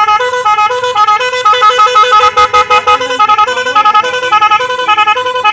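Aftermarket multi-tone musical truck horn fitted to a motorcycle, sounding very loud and playing a repeating tune of quick alternating notes, about four to five a second.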